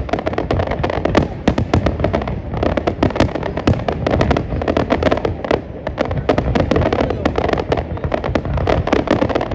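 Fireworks display: a dense, continuous barrage of cracks and bangs from bursting aerial shells, many per second.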